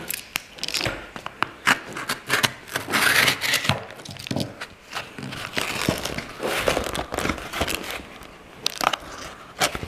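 A cardboard mailer being torn and pulled open by hand: irregular crinkling, tearing and rustling of the cardboard, with scattered sharp clicks.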